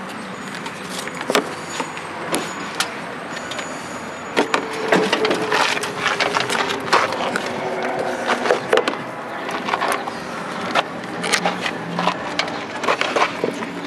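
Clicks, taps and scrapes of a nut driver working the bolts of a Briggs & Stratton engine's plastic recoil-starter cover, with hands handling the cover. They grow busier and louder from about four seconds in.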